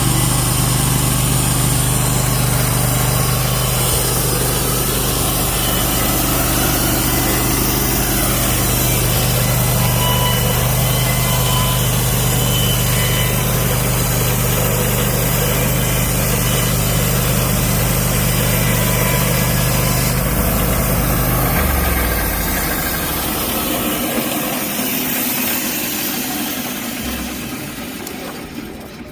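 Portable band sawmill running steadily with its engine under load as the band blade saws through a redwood log. About 22 seconds in, the low engine hum drops away and the sound gradually dies down.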